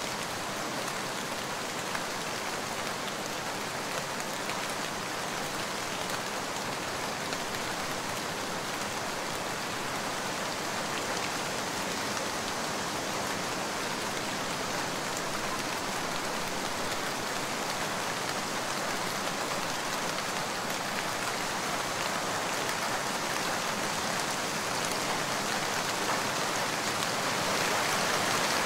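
Light rain falling steadily, an even patter of many small drops, from an added rain-sound recording; it grows slightly louder near the end.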